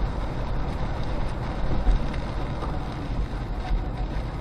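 Car cabin noise while driving through a windy snowstorm: a steady low rumble of road and wind buffeting, with light ticking against the car, which a passenger takes for frozen rain mixed in with the snow.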